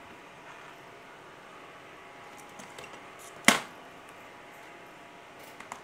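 Small connectors and test leads being handled on a bench: one sharp click about halfway through, with a few faint clicks before it and again near the end.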